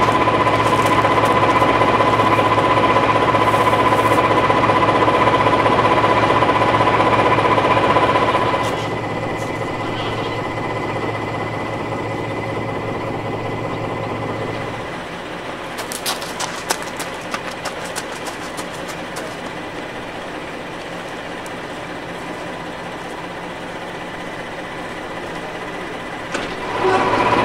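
British Rail Class 14 diesel-hydraulic locomotive's Paxman Ventura engine idling, a steady running with a high whine. About eight seconds in it gives way to quieter steady running with scattered clicks, and the locomotive's idle comes back near the end.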